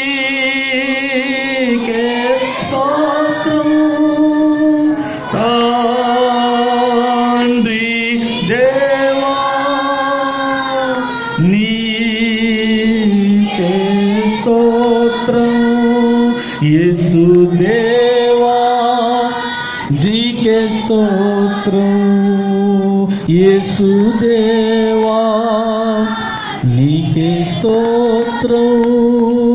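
A man singing a Christian worship song into a microphone, in phrases of long held notes with vibrato.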